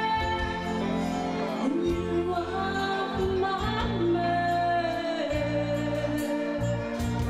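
Live band playing with a woman singing into a microphone: sustained sung notes over keyboard, bass and regular drum and cymbal strikes.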